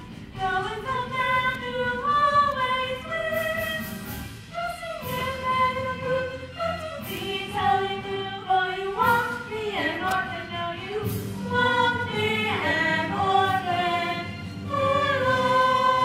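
A stage-musical cast of young singers singing a show tune together as a chorus over an accompaniment, with a long held note near the end.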